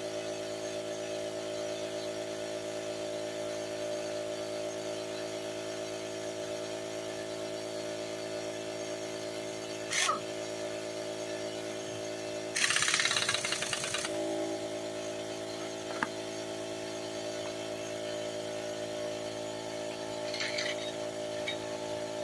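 A steady mechanical hum with several fixed tones runs throughout. A little past the middle, a loud burst of about a second and a half breaks in, with a couple of short knocks before and after it.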